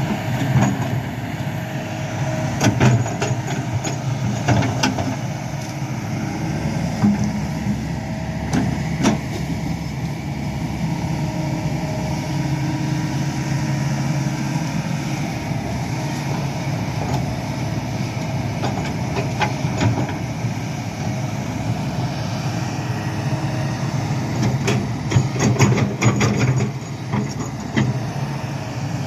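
Hydraulic excavator's diesel engine running steadily, with scattered sharp knocks over it, bunched a few seconds in and again near the end.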